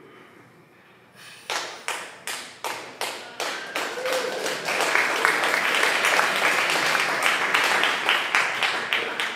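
A crowd starts clapping in unison about a second and a half in, about three claps a second, and swells into loud applause with the beat still running through it. A single shout rises out of it about four seconds in.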